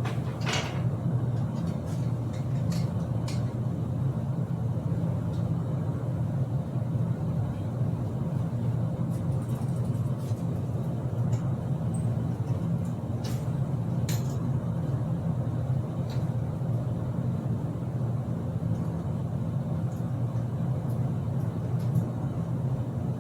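A steady low hum throughout, with a few sharp clicks and light knocks from bicycle parts being handled as wheels are fitted to the bike.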